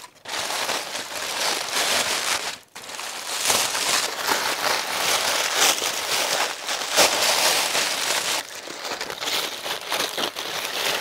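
Aluminium foil crinkling and crumpling as gloved hands pull it open, with a brief pause about two and a half seconds in.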